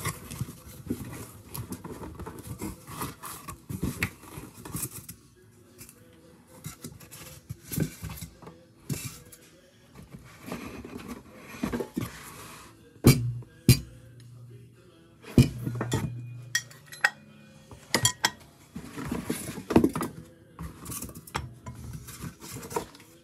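A cardboard box being opened and unpacked: cardboard scraping and rustling, with metal clutch parts clinking and knocking against each other. There are several sharp knocks around the middle.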